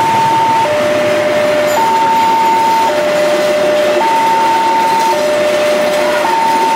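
Level-crossing warning alarm sounding a two-tone signal, a higher and a lower tone alternating, each held about a second, over the steady rumble of passenger coaches rolling past on the rails.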